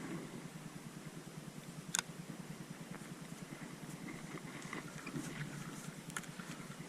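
Small creek's water running over the current, a steady rushing noise, with a sharp click about two seconds in.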